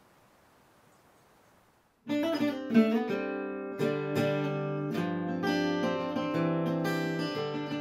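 Near silence, then about two seconds in a guitar music track starts, with plucked and strummed notes ringing over steady chords.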